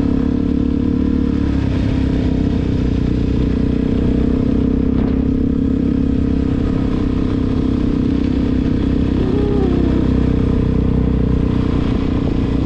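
Suzuki DR-Z400 single-cylinder four-stroke engine running at a steady engine speed while the bike is ridden, with a low rumble underneath.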